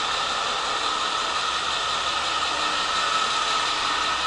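Steady hiss with a faint low hum and a thin high tone, unchanging throughout.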